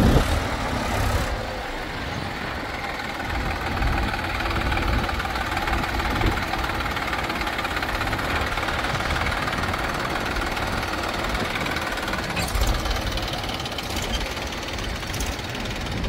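Diesel engine of heavy earth-moving or farm machinery running steadily.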